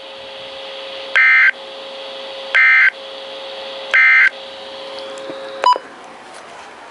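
Midland WR100 weather radio sounding the EAS end-of-message code: three short, identical bursts of harsh buzzing data tones, about a second and a half apart. They mark the end of the NOAA alert broadcast. A faint steady hum runs underneath, and a single sharp click comes near the end.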